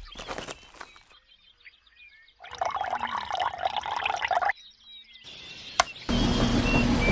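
Water pouring or splashing for about two seconds, between quieter stretches with clicks. About six seconds in, a loud steady hum starts abruptly.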